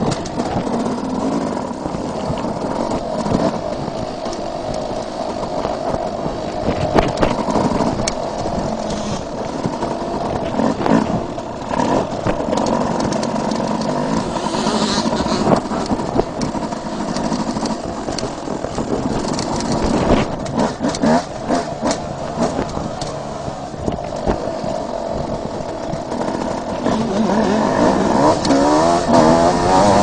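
Suzuki RM250 single-cylinder two-stroke motocross engine, heard on board, revving up and down as the bike is ridden hard, with scattered sharp knocks. The revs climb near the end.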